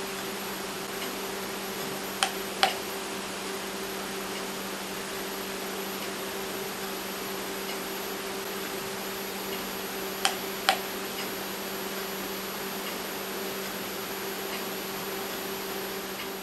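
Two pairs of sharp clicks, about two seconds and about ten seconds in, over a steady low hum and hiss: the push-button of a small USB bicycle safety light being pressed to step through its flash modes.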